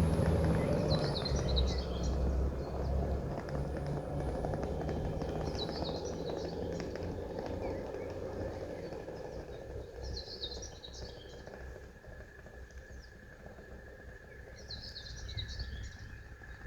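A train's low engine rumble fading steadily as it moves off, while a bird sings the same short chirping phrase four times, about every four and a half seconds.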